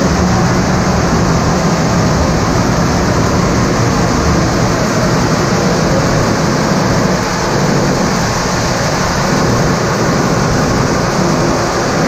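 Steam-powered band sawmill running: a steady, loud mechanical rumble and whir.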